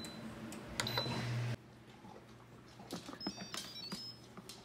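Instant Pot control panel beeping as its buttons are pressed: a short high beep at the start and another about a second in, over a low hum that cuts off suddenly. Later come faint clicks and light metal clinks as the lid is taken off the pot.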